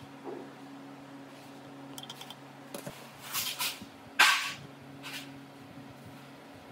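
A few sharp knocks and clatters, the loudest a little past the middle, over a steady low hum.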